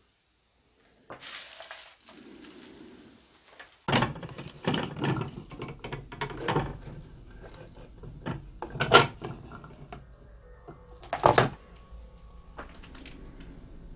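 Plastic food containers and bowls knocking and clattering as they are handled and moved, in an irregular string of sharp knocks that starts about four seconds in, the loudest near nine and eleven seconds.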